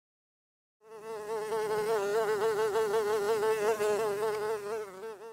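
Housefly buzzing in flight: a steady, slightly wavering drone that starts about a second in and lasts about four and a half seconds.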